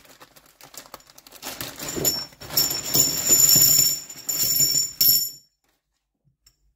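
A plastic bag rustling and a pile of new Engine Tech stamped-steel rocker arms clinking together as they are tipped out of it onto a shop towel. The clatter grows louder after about a second and a half and stops suddenly about five and a half seconds in.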